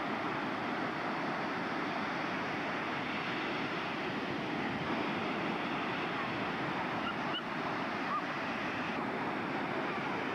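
Ocean surf breaking and washing up the beach: a steady, even rush of noise.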